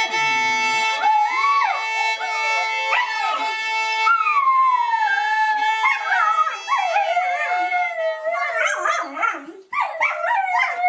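A Sheltie howling along to a held instrument note, its howl sliding up and down in pitch over the steady tone. The note stops about eight seconds in, and the dog carries on with shorter, broken howls and yips.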